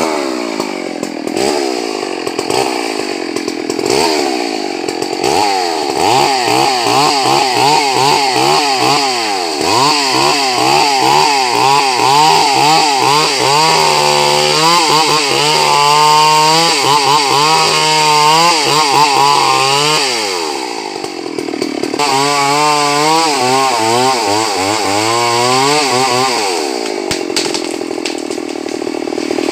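Two-stroke chainsaw running at high revs and cutting through wood, its engine pitch wavering and sinking under load during two long cuts, with a brief easing off between them.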